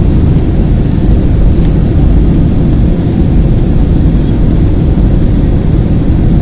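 Airliner's jet engines and rushing air during take-off, a loud, steady low rumble as heard from inside the cabin.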